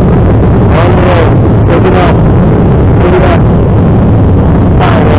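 Airliner jet engines heard from inside the cabin over the wing, a loud steady rumble during the takeoff roll. Four short, brief noises with gliding tones cut through it, about a second, two seconds, three seconds in and near the end.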